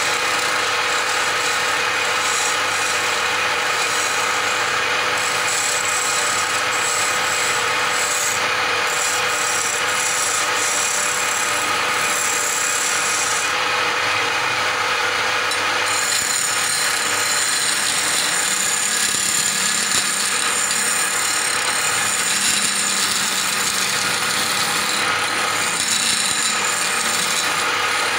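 Wood lathe running steadily as a hand-held turning chisel cuts into a spinning wooden spindle, a continuous scraping of shavings over the steady hum of the lathe's motor. About halfway through, the cut changes character slightly.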